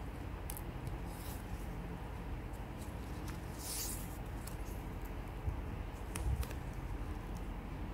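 Satin ribbon rustling and sliding through fingers as it is folded and pulled, with a short swish just under four seconds in and a few soft taps a little after six seconds, over a steady low background hum.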